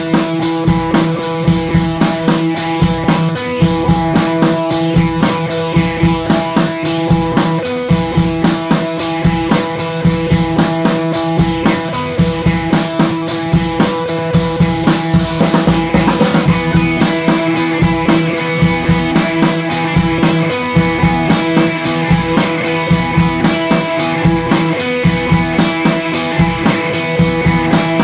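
Music with a steady drum-kit beat over held instrumental notes.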